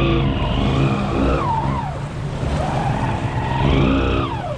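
ATV engine revving up and easing off twice, with a whine that rises and falls in pitch each time.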